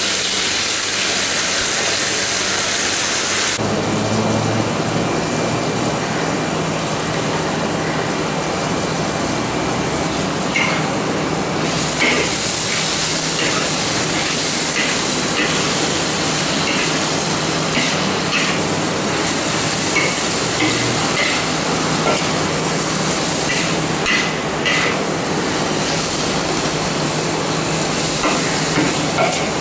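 Vegetables sizzling in a hot wok, hissing most brightly for the first few seconds after the long beans and carrot go in, while a metal spatula scrapes and clinks against the wok as they are stir-fried; the clinks come often from about ten seconds in.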